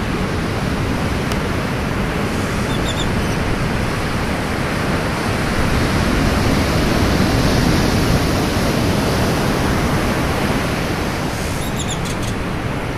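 Ocean surf breaking and washing up the beach: a loud, steady rush of water that swells a little in the middle.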